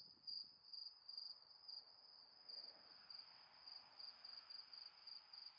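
Faint, high-pitched insect chirping that pulses evenly a few times a second, over a soft hiss.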